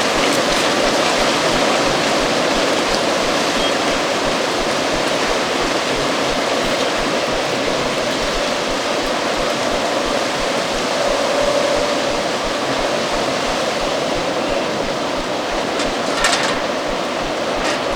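Stormy autumn wind blowing steadily as a dense rushing noise, with a faint whistling tone that swells briefly about two-thirds of the way through. A short sharp sound comes near the end.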